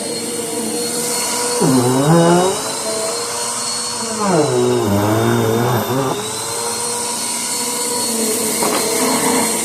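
Vacuum cleaner running steadily with a whining hum. Its pitch sags twice and comes back up, once briefly about two seconds in and again for about two seconds midway.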